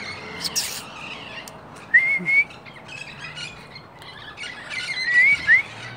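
Amazon parrots calling: short squawks and wavering whistled calls, one group about two seconds in and another around five seconds.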